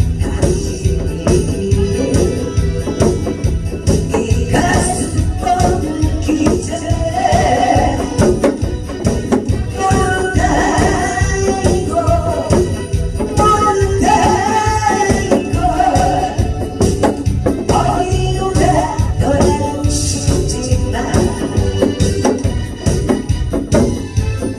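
Korean trot song on an electronic organ with a fast disco-style beat. A voice sings the melody from about four seconds in.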